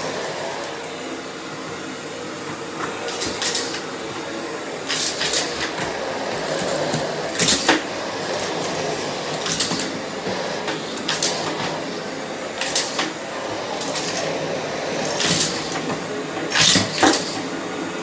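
Miele C3 canister vacuum cleaner running steadily, with short sharp rattling clatters about ten times as small plastic Lego pieces are sucked up the floor head and tube.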